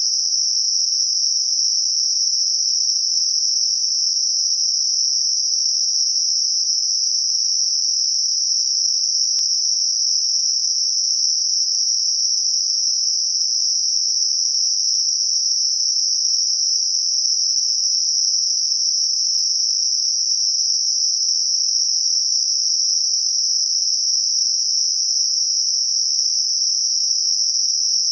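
Synthetic Gaussian narrow-band noise centred at 5.5 kHz: a steady, high-pitched hiss with no pauses or changes. It is made as a tinnitus masker.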